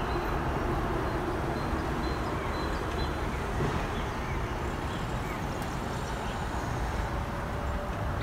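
Steady city street ambience dominated by the low rumble of road traffic, with a faint tone rising slowly near the end.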